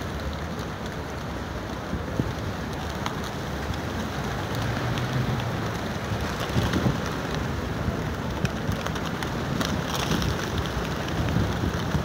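A big flock of feral pigeons flapping their wings, a dense clatter of many wingbeats that grows louder about halfway through, with surges as groups of birds lift off.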